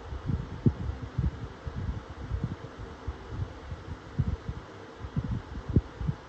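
A 16-inch pedestal fan and a 30-inch tower fan running together on high: a steady airy hiss, with irregular low thumps of their airflow buffeting the microphone.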